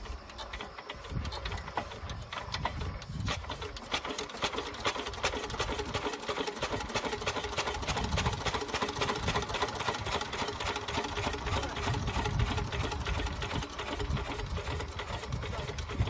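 Small single-cylinder diesel engine running with a rapid, even clatter, which picks up and grows busier about three seconds in.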